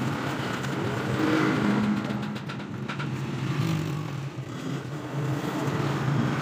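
An engine running with its pitch drifting up and down, with a few sharp clicks about two and a half to three seconds in.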